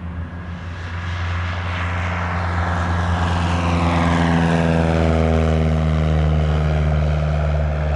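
Light propeller aeroplane passing close by, its engine and propeller note growing louder over the first few seconds and then sliding steadily down in pitch as it goes past.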